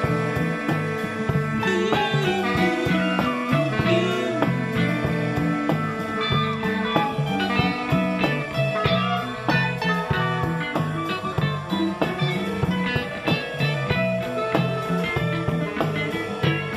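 A band playing an instrumental passage: electric guitar lines over a repeating bass figure and a steady drum beat.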